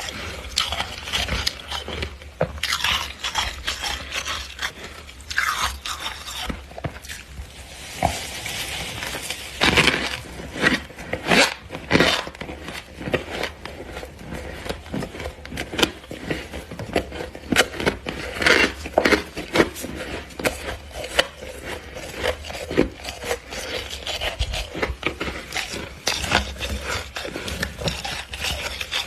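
Freezer frost being scraped loose and bitten, crunching and crackling in irregular bursts as it is chewed close to the microphone. A steady low hum runs underneath.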